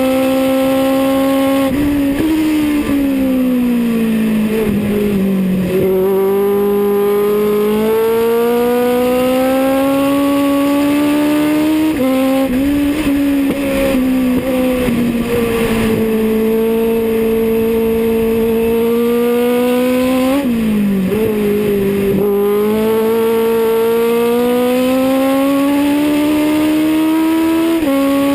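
Legends race car's Yamaha motorcycle-derived four-cylinder engine at racing speed, heard from inside the cockpit. The engine note drops sharply about two seconds in, again about twelve seconds in and near twenty seconds, each time slowly climbing again as the car accelerates.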